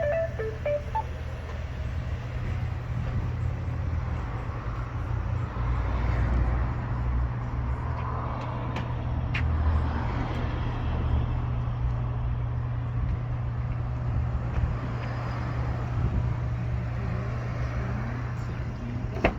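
Vauxhall Cascada on the move: a steady low engine and road rumble that swells and eases a little.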